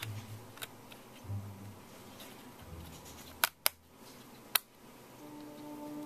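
DDR3 SO-DIMM memory module being pressed down into a laptop's memory slot, snapping into the side retaining clips: three sharp clicks a little past the middle, two close together and a third about a second later.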